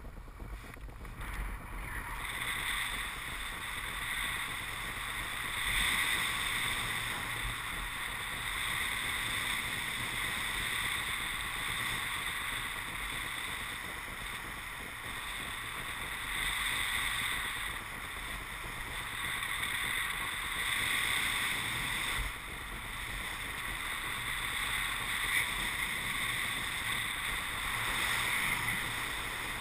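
Steady rush of airflow on the camera's microphone in paraglider flight, swelling and easing every few seconds.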